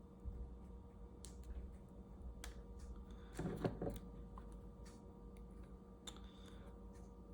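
Faint, scattered clicks and light taps of small soldering tools and parts being handled, with a short clatter about three and a half seconds in, over a low steady hum.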